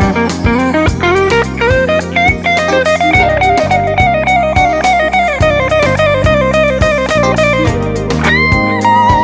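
Electric guitar lead played on its neck pickup, a Kent Armstrong Stealth 90, with a smooth overdriven gain tone, over a backing track of drums and bass. A run of quick notes gives way to a long wavering line with vibrato, and a high note is held near the end.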